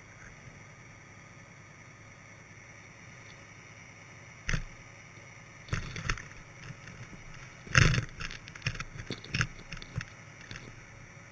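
A GoPro's underwater housing knocking and scraping against the rocky, gravelly seabed, heard from inside the housing over a steady low underwater hiss. A single knock comes a little before the middle, then a run of irregular knocks, the loudest about two-thirds through.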